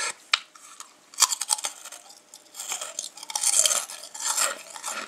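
Freshly deep-fried potato-starch lattice crisp being bitten and chewed: a run of sharp, crackling crunches in several clusters. Very crisp.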